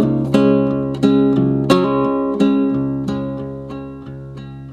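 Background music: an acoustic guitar plucking notes and chords that ring and fade. A new note comes every half second to a second, and the last one dies away toward the end.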